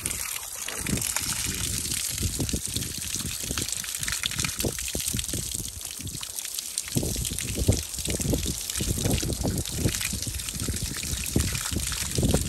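Water running from a hose pipe and splashing over hands and a fossil whelk shell as it is rinsed clean, the water spattering onto the wet ground below.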